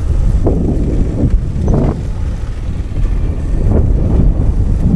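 Wind buffeting the microphone while riding, a heavy steady rumble with vehicle noise underneath.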